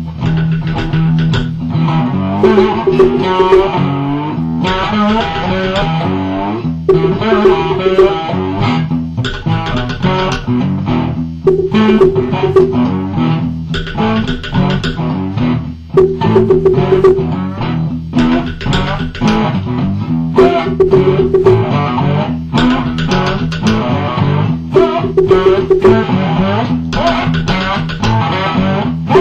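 Homemade cigar box guitar and log drum jamming together: busy plucked guitar notes over percussive strikes. The guitar keeps coming back to a short phrase that ends on a held note about every two seconds.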